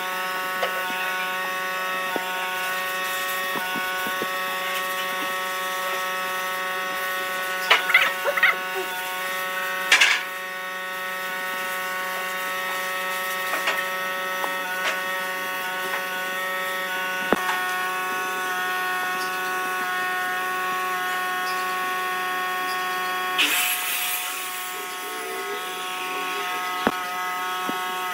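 Electric power tool's motor running at a steady speed with a constant whine, and a few short scrapes and knocks of work on wood.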